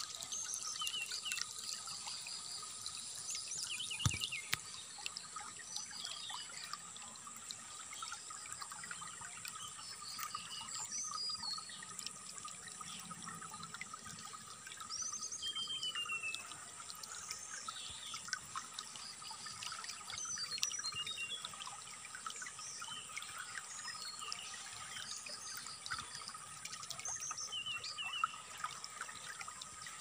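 Trickling water, with a brown-chested jungle flycatcher's short chirps, rapid trills and a falling whistle scattered throughout over a steady high ringing.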